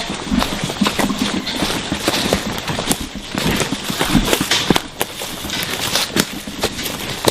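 Irregular sharp clicks and knocks, a few a second, over a steady hiss.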